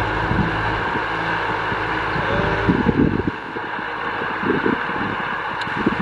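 Kubota M6040SU tractor's diesel engine running steadily as it pulls a disc plough through dry soil, with wind buffeting the microphone in uneven gusts from about three seconds in.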